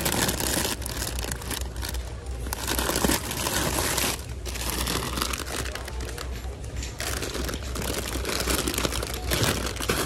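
Crinkling and rustling of things being handled close to the microphone, in irregular spurts with short pauses, over a steady low hum.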